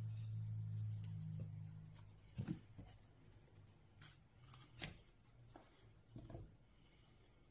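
Faint soft knocks and clicks as banana pieces are broken off and dropped into a kitchen machine's stainless-steel mixing bowl, about six of them over four seconds, the loudest about two and a half seconds in. A low steady hum underneath dies away about two seconds in.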